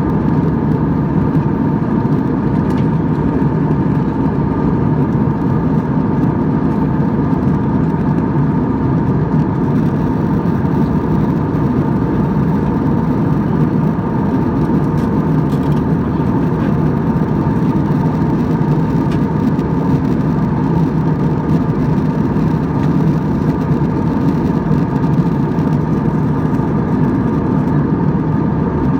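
Jet airliner's engines heard from inside the passenger cabin in flight: a steady, unchanging drone with a hum near 1 kHz over a deep roar.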